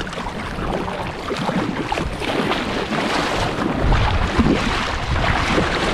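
Kayak paddle strokes splashing and dripping in shallow river water, with wind buffeting the microphone and a stronger gust about four seconds in.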